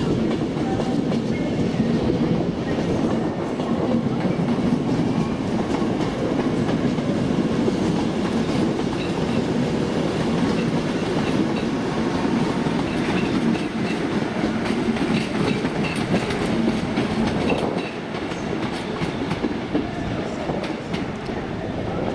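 A train running past, its wheels clattering steadily over the rail joints, a little quieter near the end.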